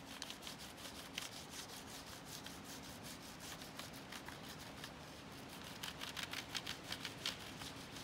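The side of a peeled crayon scrubbed quickly back and forth over paper pressed against tree bark, a run of short scratchy strokes as the bark ridges catch it. The strokes come faster and louder in the second half.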